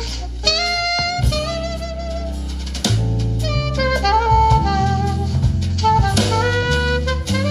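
Jazz with a saxophone melody over drums and bass, played through a Panasonic SU-D5500 amplifier and Pioneer S-Z82V three-way speakers.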